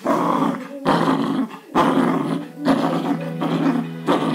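Jack Russell terrier puppy growling in repeated bursts, about one a second, while tugging on a rubber ring toy in play.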